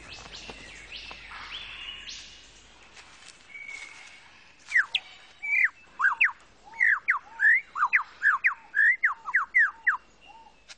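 Superb lyrebird singing: after a few seconds of fainter bird calls, a loud, fast run of sweeping whistled notes, about three a second, begins nearly halfway through and stops shortly before the end.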